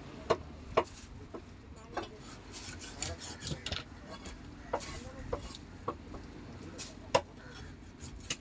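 Milk shark being cut on an upright fixed blade on a wet wooden board: rubbing, scraping cuts through flesh and skin, with sharp knocks every second or so, the loudest about seven seconds in.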